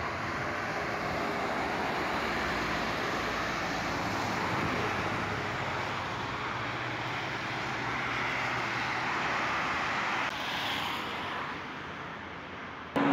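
Steady rushing road-traffic noise, with no voices. It changes character about ten seconds in and stops abruptly near the end.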